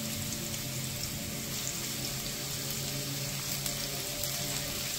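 Vegetables stir-frying in hot oil in a nonstick kadai: a steady sizzle with small crackles as freshly added broccoli florets fry with onion, carrot and green beans. A steady low hum runs underneath.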